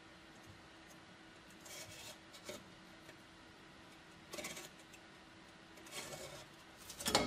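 A white marker tip scratching over the rusted steel of a helmet shell in a few short, faint strokes with pauses between.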